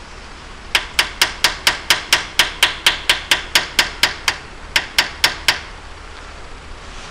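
Steel hammer giving about twenty light, even taps, roughly four a second with a brief pause partway through, on an old wheel bearing used as a driver. The taps are seating a new axle seal in a Ford 8.8 rear axle housing.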